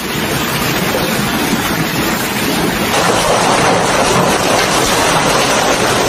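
Heavy hail falling on the ground and roofs, a dense, steady rush of noise that grows louder about three seconds in.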